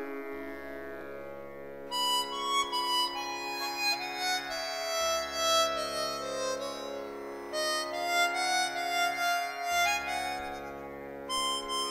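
Background music: a held, reedy melody over sustained low notes that change every few seconds.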